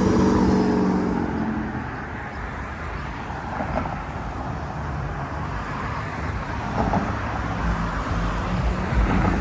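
Road traffic: a passing vehicle's engine hum fades away over the first two seconds, leaving a steady traffic hum, with low rumble building near the end.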